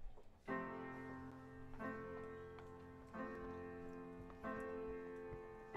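Recorded music: slow solo piano chords, four chords struck about a second and a half apart, each left ringing into the next.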